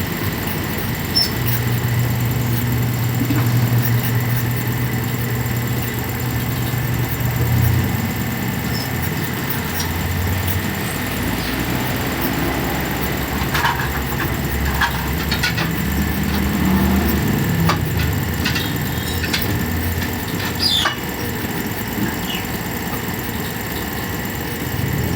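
An engine running steadily at a low, idling pace, with scattered short clicks and a few brief high squeaks about halfway through.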